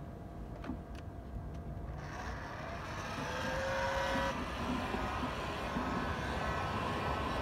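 Electric heat gun switched on about two seconds in, its fan rising in pitch as it spins up and then blowing steadily, warming a dented car panel for paintless dent repair. A few light clicks come before it starts.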